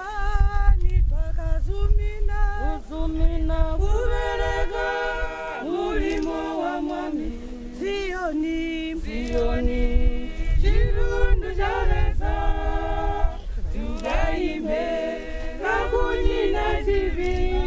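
A group of mourners singing a hymn unaccompanied, several voices in parts, in held, sustained notes. A heavy low rumble runs underneath the singing.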